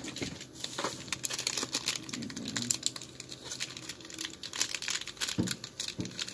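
Plastic crinkling and rustling with many small irregular clicks and taps, as purchases are handled and bagged at a store checkout counter.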